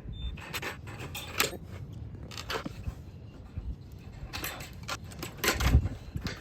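Scattered clicks and light metallic taps of sheet-metal barn trim being handled and reworked, with a louder low thump near the end.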